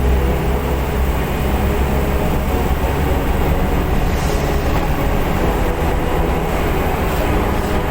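Heavy diesel engine of a hydraulic excavator running steadily while it loads sand, a strong low drone with no break.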